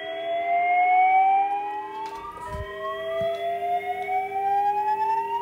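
Voice evacuation alarm tone paged through the loudspeakers of a Bogen UTI1 paging system: a slow whoop, each tone rising in pitch over about four seconds, the next one starting low again about two seconds in, over a steady lower hum. A soft low bump comes about two and a half seconds in.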